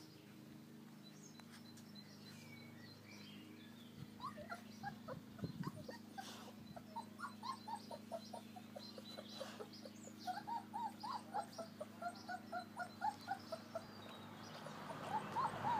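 American Akita puppies whimpering and yipping: many short, high squeaks in quick succession, starting about four seconds in, over a steady low hum.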